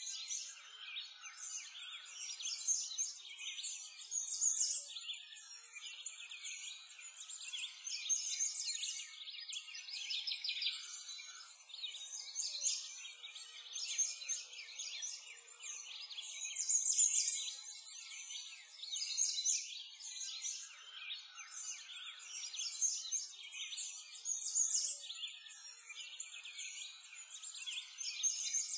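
A steady chorus of birds chirping and twittering, all high-pitched, swelling and fading every couple of seconds.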